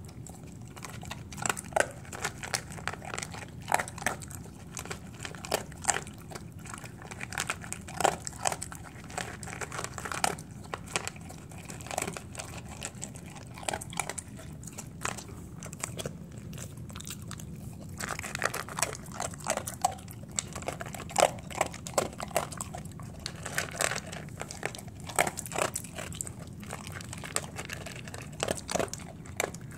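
Dog eating dry kibble from a metal bowl: irregular crunching and chewing with clicks of the pellets, easing off briefly a little past the middle.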